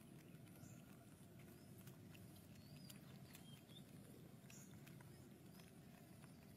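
Near silence: a low steady hum under faint, short high chirps from a small animal, scattered through, with a few soft clicks.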